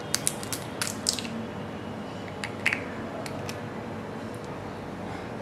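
Eggshell clicking and tapping as an egg is cracked and its white is separated into a bowl. A quick cluster of sharp clicks comes in the first second, and a few more follow around the middle.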